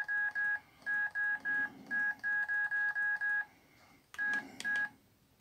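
Jinga F200n feature phone's key tones: a string of short, identical beeps, about four a second, as the navigation key is pressed over and over to scroll a file list. The run breaks off about three and a half seconds in, and two more beeps follow near the end.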